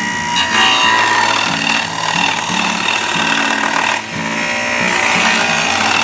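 Old table saw with a dado blade cutting a groove in a wooden board. The cut starts about half a second in, drops off briefly near four seconds, then goes on.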